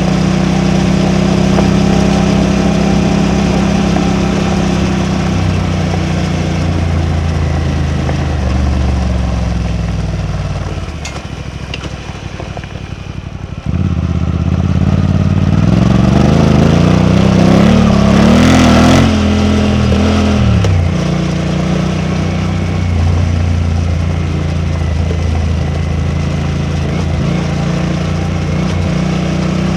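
Suzuki V-Strom 800DE's parallel-twin engine on the move, heard raw. It runs steadily, eases off with falling pitch and goes quieter for a few seconds. About halfway through it comes back on abruptly and revs up in a rising pull to its loudest, then drops back to a steady cruise.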